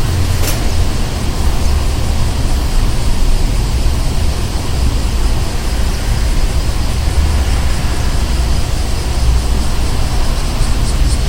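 Street ambience: a steady low rumble of road traffic with a general hiss. There is one sharp click about half a second in, and a fast, faint high ticking starts near the end.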